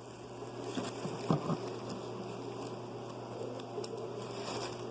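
Faint rustling and a couple of soft taps from a plastic bag being handled and stuffed into a paper squishy, over a steady low hum.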